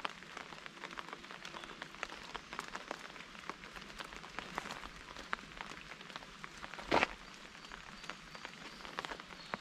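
Raindrops tapping irregularly on a nearby surface, many small scattered ticks in light rain, with one louder knock about seven seconds in.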